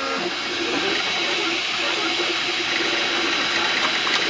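FDM 3D printer running: a steady fan hiss, with the stepper motors whining in short tones that shift in pitch as the printhead moves.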